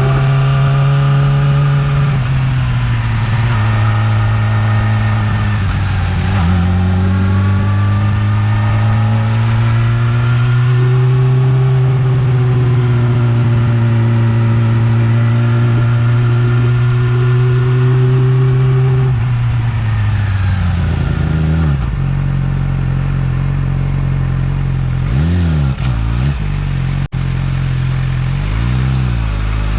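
Yamaha R6 inline-four engine running with a steady note that rises and dips with the throttle, then falls and settles to a lower, steady note about twenty seconds in.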